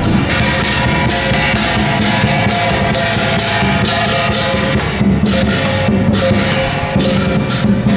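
Music with a steady beat of drums and percussion strokes over sustained pitched notes.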